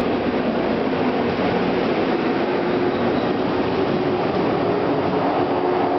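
JR West 117 series electric multiple unit pulling out of a station and gathering speed past the platform, its running noise steady. The hum of its traction motors climbs slowly in pitch as it accelerates.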